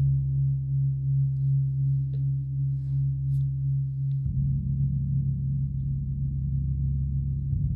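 A 40-inch Oetken Symphonic gong rubbed with Flumies #4 friction mallets, giving a low, steady humming drone that swells and pulses gently. About four seconds in the tone turns rougher and flutters faster.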